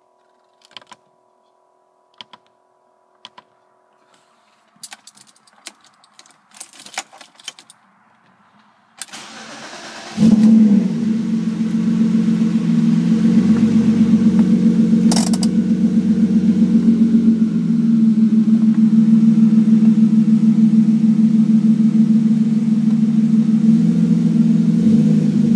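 Clicks and key sounds, then a BMW M3's straight-six is cranked by the starter about 9 s in and catches a second later. It settles into a steady, fast cold-start idle as it begins to warm up, with one sharp click partway through.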